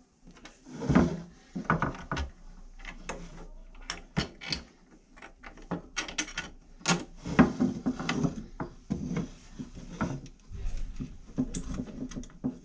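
Black plastic ice-shuttle parts and hardware being handled and fitted together on a wooden workbench: irregular clicks, knocks and rubbing as a reducer holder is set onto the frame.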